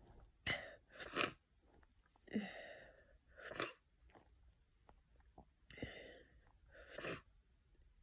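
A person with a head cold sniffing and sneezing: six short breathy bursts in three pairs over about seven seconds.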